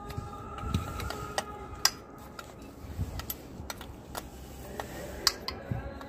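Irregular sharp metallic clicks and clinks of hand tools on the fuel injection pump fittings of a JCB 444 diesel engine as the pump is unbolted.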